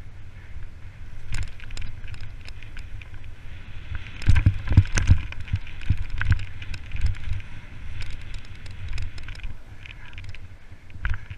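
Mountain bike riding fast downhill over rough ground: a steady low rumble of wind on the microphone with many sharp rattles and knocks from the bike, heaviest about four to five seconds in.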